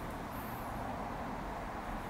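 Steady outdoor background noise with a low rumble, and a brief high chirp about half a second in.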